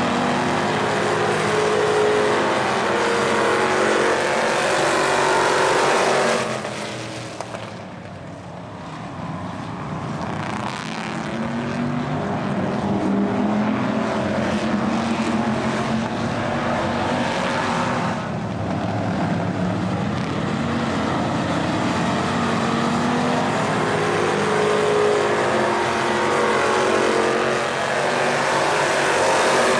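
Dirt-track stock car engines running hard around the oval, loud and rising and falling in pitch as the cars pass; the sound drops away about seven seconds in and builds again as the field comes back around.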